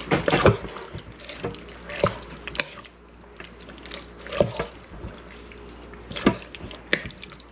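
Wooden spoon stirring a wet mix of ground beef and diced tomatoes in a ceramic slow-cooker crock: irregular wet squelching and scraping strokes, roughly a second apart.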